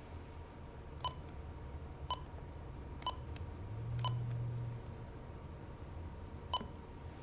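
Bosch B930 alarm keypad beeping as keys are pressed: four short, high beeps about a second apart, then a fifth after a pause of about two and a half seconds, the pattern of a four-digit user code followed by the enter key to disarm the system.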